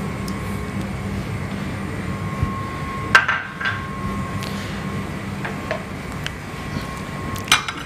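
Silicone spatula stirring cream and milk in a pan, with a few light knocks and clinks against the pan, the sharpest about three seconds in and another near the end, over a steady low hum.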